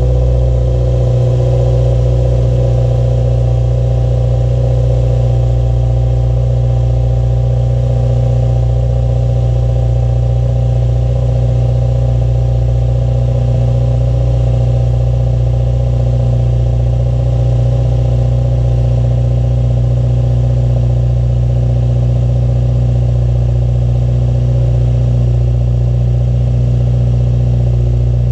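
Subaru WRX turbocharged flat-four idling steadily on a cold start, heard at the quad tailpipes through a Remark muffler-delete exhaust.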